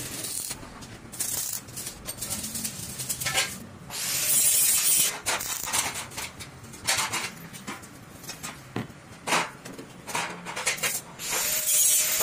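Stick (shielded metal arc) welding on steel square tubing: the electrode's arc gives a crackling hiss that starts and stops several times as short welds are laid, with quieter gaps between.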